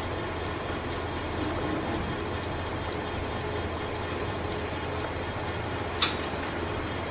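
Zwick tensile testing machine running as it loads slackline webbing: a steady low hum with faint regular ticks about twice a second. One sharp click about six seconds in.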